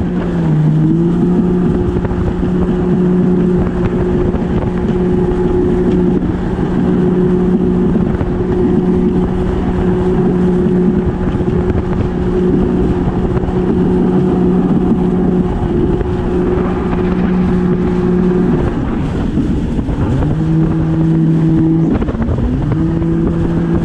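Yamaha WaveRunner jet ski's engine running steadily under throttle, with wind and water noise. The engine note eases off briefly just after the start, drops away about 18 seconds in, then comes back at a lower pitch, dips once more and climbs again near the end.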